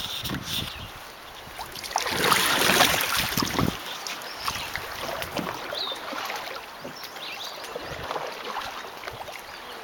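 Canoe being paddled on a river: water splashing and small knocks, with a louder rush of noise lasting about two seconds, starting about two seconds in.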